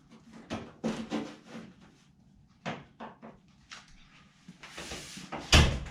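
Loose sheet-metal patch panel being handled and pushed against a car body: a string of light knocks and clatters, a short scrape about five seconds in, then a heavy thump near the end.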